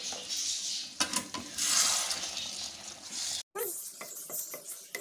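Potato and tomato curry sizzling in an aluminium kadhai, with a little water just added to soften the potatoes. After a brief break about three and a half seconds in, a spatula stirs and scrapes the pan with quick knocks.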